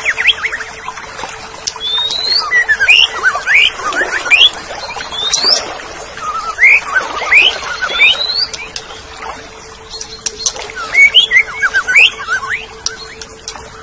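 Greater green leafbird (cucak ijo) singing its chattering song: quick, varied whistled notes sweeping up and down, in bursts with a short lull about two-thirds of the way through.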